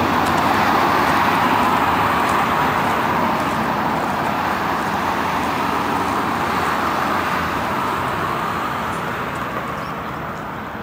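Jet aircraft engine noise: a steady rushing sound, strongest in the middle range, fading gradually throughout.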